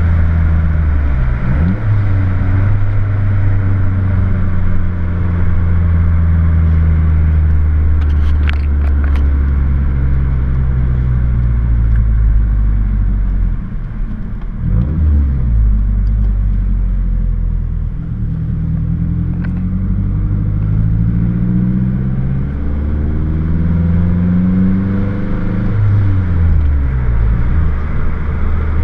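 Car engine and new aftermarket exhaust heard from inside the cabin while driving. The note holds steady at first, then climbs repeatedly as the car accelerates, falling back at each gear change. The owner says this exhaust doesn't drone.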